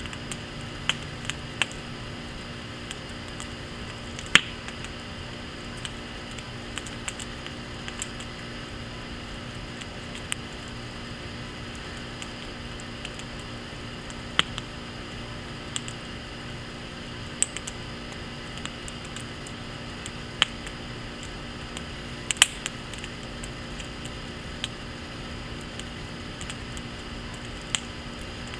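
Teepee-stacked wood fire in a firepit crackling: irregular sharp snaps and pops every second or few, some much louder than others, over a steady hiss.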